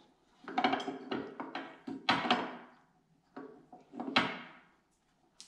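Metal clunks, clicks and rattles of a power steering pump and its mounting bracket being handled and unbolted on a steel workbench, with the sharpest knocks about two seconds and about four seconds in.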